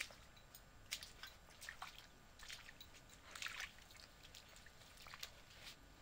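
Faint, irregular wet clicks, ticks and drips of water in soft mangrove mud.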